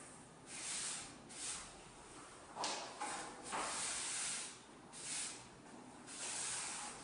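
Angle broom sweeping a concrete floor: a series of about seven bristle swishes, each under a second long and unevenly spaced.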